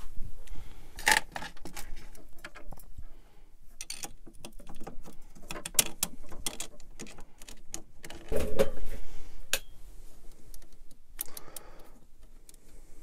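Scattered clicks and light metallic clatter as a 3D printer's metal carriage plate, with its bolts and nuts, is handled and fitted back onto the aluminium rail by hand, with a louder knock about eight and a half seconds in.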